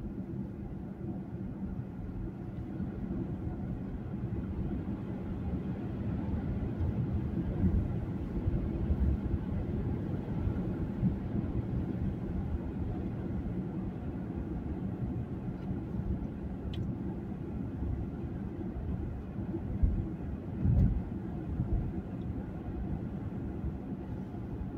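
Steady low road and engine rumble inside a moving car's cabin, a little louder after the first few seconds, with a couple of short low thumps near the end.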